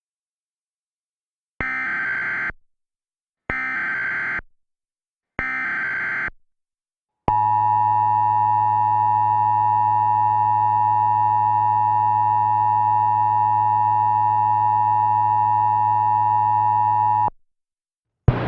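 Mock Emergency Alert System header: three short bursts of SAME digital data tones, each about a second long, followed by a steady attention tone lasting about ten seconds that cuts off abruptly. This sequence signals the start of an alert message.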